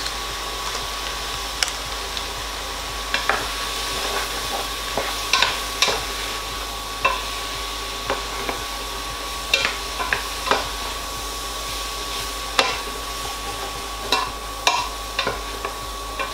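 Chicken, onion and curry powder frying in a stainless steel pot with a steady sizzle, while a plastic spatula stirs and scrapes, knocking irregularly against the pot's sides and bottom.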